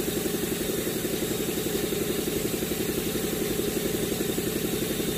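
Steady running drone of an engine or motor, with a rapid, even pulse that does not change.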